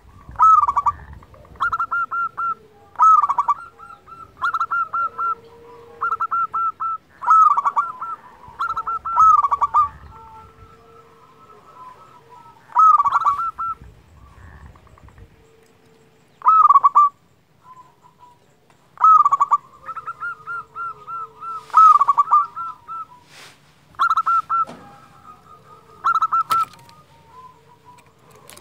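Zebra dove (perkutut) singing: short phrases of quick staccato coos, repeated every second or two with brief pauses between.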